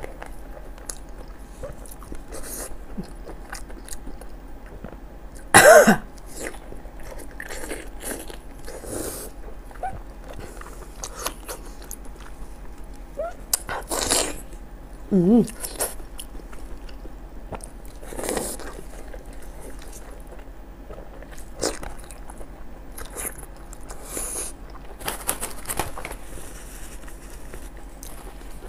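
Close-miked eating of a soft Chinese blood sausage in chili sauce: wet biting, chewing and sucking sounds, with a few louder slurping bursts, the loudest about six seconds in.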